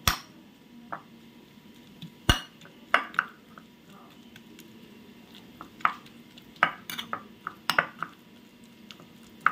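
Steel spoon clinking and scraping against a plate while mashing and mixing shredded boiled chicken with mayonnaise, in irregular taps, the sharpest about two seconds in.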